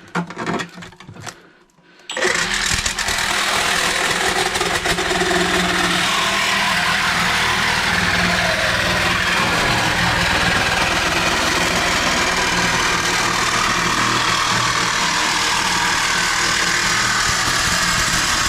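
Cordless reciprocating saw with a metal-cutting blade cutting through metal plate: a few handling clicks, then about two seconds in the saw starts and runs loud and steady through the cut, stopping right at the end.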